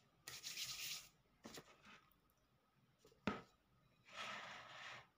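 Quiet close-up handling noises: short rustling and rubbing as hands reach for a plate of cheese roll cake, a single sharp tap about three seconds in, and a longer rustle near the end.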